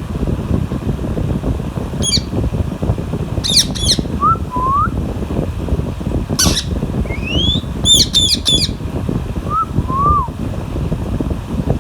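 Pet parakeets squawking: short, shrill calls, some in quick runs of two or three, with a few lower whistled glides between them, over a steady low rumble.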